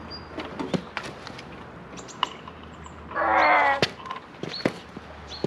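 A man's strained grunt of effort, about three seconds in, as he heaves a Kawasaki Versys 1000 motorcycle up off its side. Scattered clicks and knocks from his boots and the bike run around it, with a sharp knock just after the grunt.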